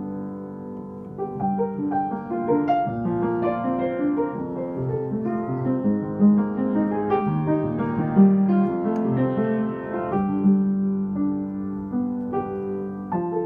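Upright piano being played: a held chord, then a melody of quicker notes over sustained chords from about a second in.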